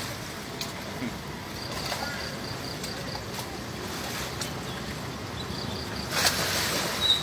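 Splashing and sloshing in shallow, muddy drainage-ditch water as people roll and crawl through it, over a steady background noise; a louder splash comes about six seconds in.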